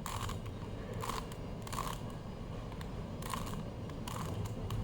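Plastic Rubik's cube being turned by hand, its layers giving a few short clicks at irregular intervals.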